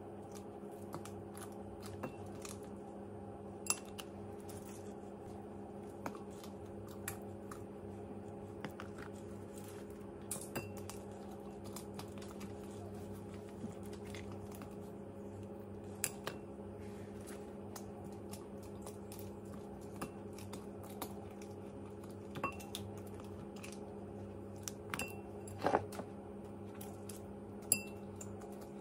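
Silicone basting brush tapping and scraping against a glass bowl as sauce is brushed onto fried chicken wings: scattered light clicks and taps, one louder knock near the end, over a steady low hum.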